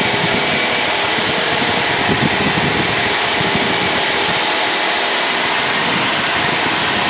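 Steady drone of a 1978 Cessna 172N's engine and propeller in flight, heard as an even rushing noise through the headset intercom feed.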